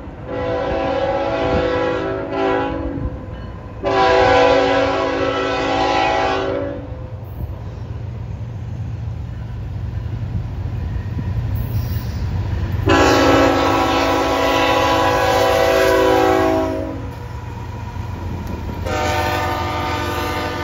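Air horn of an approaching CN diesel freight locomotive sounding a series of chord blasts: one about two seconds long, a brief toot, a three-second blast, a four-second blast about thirteen seconds in, and another starting near the end. Under the horn runs the steady low drone of the diesel locomotives, growing as they draw near.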